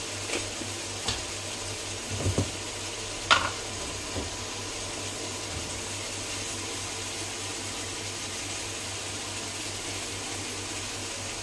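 Light clicks and knocks of a spoon against kitchen containers as seasoning is scooped in, with one sharp click about three seconds in. Under them runs a steady low hum.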